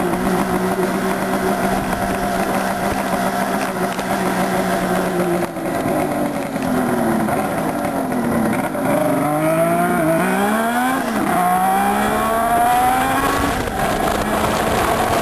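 Suzuki GT380M air-cooled two-stroke triple running through a Piper 3-into-1 exhaust: a steady idle, then the revs rise and fall several times from about six seconds in, before it settles back to idle near the end.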